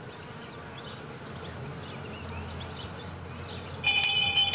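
Quiet outdoor background with a low hum and faint high chirps. About four seconds in, a loud ringing of steady bell-like tones starts, with a jingling shimmer pulsing about three times a second.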